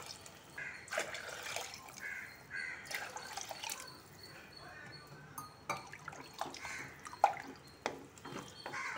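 Water being poured into a pressure cooker of sautéed vegetables, soaked rice and moong dal, splashing irregularly as it fills the pot.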